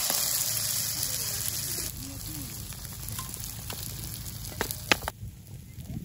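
Egg-dipped bread slices sizzling in hot oil in a steel frying pan, loudest in the first two seconds. Two sharp clicks come near the end, and the sizzle drops away suddenly about five seconds in.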